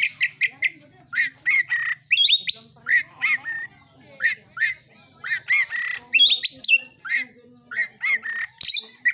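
Oriental magpie-robin (kacer) singing in its fighting-song mode: a fast run of short, sharp notes and quick rising-and-falling whistles, broken by brief pauses.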